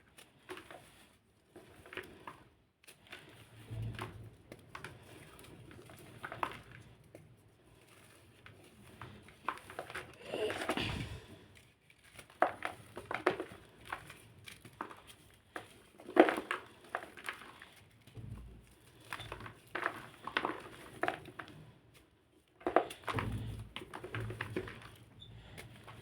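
Black crunchy blocks being crushed, making bursts of crisp crunching and crackling with short pauses between them, and one longer crumble about ten seconds in.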